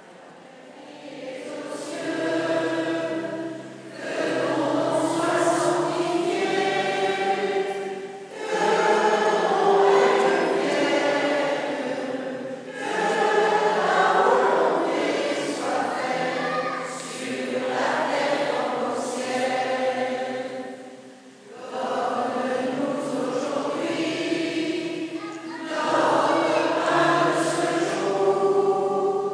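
Church choir singing a hymn in phrases, with short breaks between them, over steady low held accompaniment notes.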